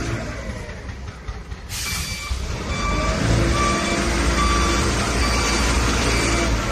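JCB 4CX backhoe loader's diesel engine running, revving up about three seconds in, while its reversing alarm beeps steadily about once every 0.7 seconds from about two and a half seconds in.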